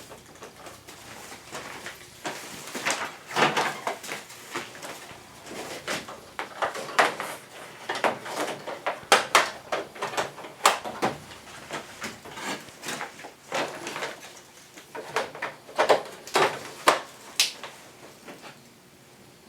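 Irregular clicks and knocks of air-conditioner parts being handled and fitted, dozens of short sharp strikes in uneven runs.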